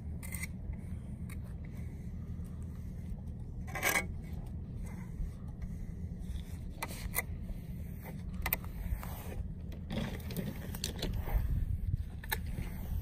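Steel finishing trowel scraping over freshly poured rubber-granule surfacing. Short scraping strokes come with scattered sharp ticks, the strongest about four seconds in, over a steady low hum.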